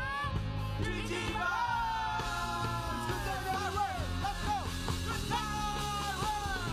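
A band playing a pop-rock song with a woman singing lead, her voice gliding through sustained phrases over a steady bass line and backing instruments.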